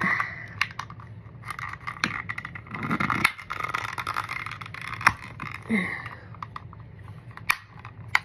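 Plastic handle of a reach-grabber tool clicking and scraping as its parts are worked by hand, with irregular small clicks and a few sharper clicks, the loudest about five seconds in and near the end.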